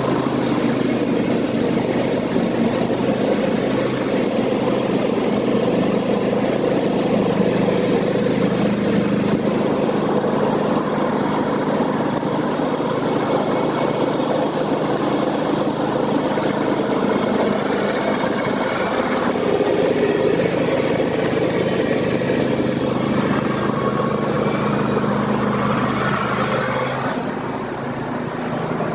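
An engine running steadily with a constant low hum, easing off slightly near the end.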